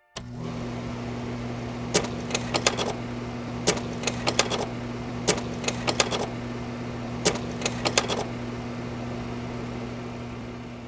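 A machine running with a steady low hum and a regular rattle of sharp clicks: one click, then a quick group, repeating about every second and a half. It starts abruptly and fades out near the end.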